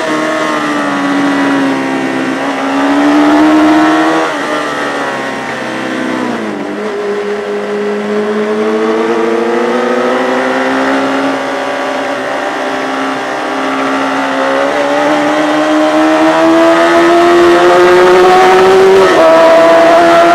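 Racing motorcycle engine at speed, its pitch rising under throttle and dropping sharply about four and six seconds in. It then climbs slowly for a long stretch before another quick change near the end, the pattern of gear changes and braking through corners.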